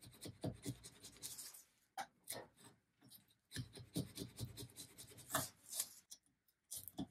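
A small blade scraping and shaving a wooden handle held in a vise, in short, irregular scratchy strokes. It is taking the broken surface down flat so the glued repair will adhere.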